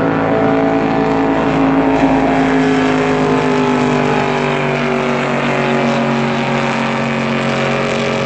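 Powerboat engine running loud and steady, its pitch slowly falling.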